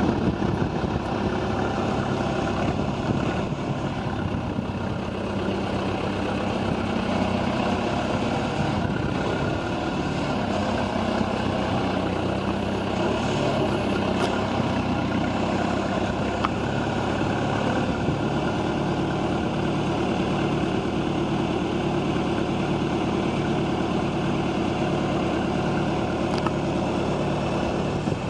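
John Deere 310A loader backhoe's engine running steadily at idle.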